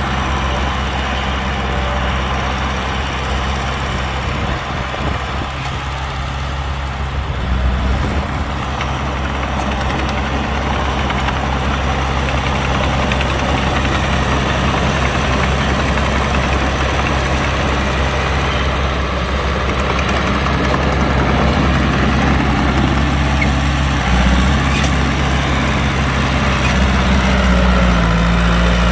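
Heavy diesel engine of earthmoving machinery running steadily at a low, even hum, with a brief thump about eight seconds in and another near 24 seconds, and the engine note rising a little near the end.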